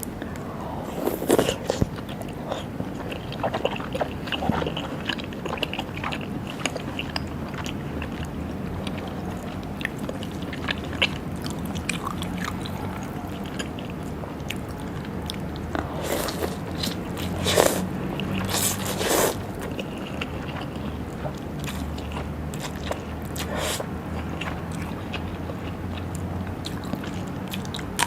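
Close-up eating sounds of a raw seafood meal: chewing and biting with scattered small clicks and utensil scrapes. A few louder, sharper bites come in a cluster a little past halfway, over a steady low hum.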